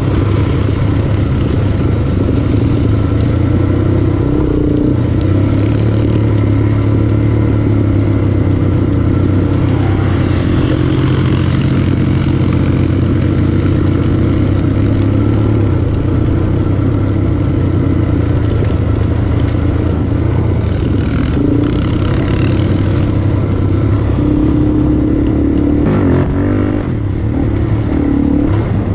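A vehicle engine running steadily under way on an off-road track, with a few knocks and clatter near the end.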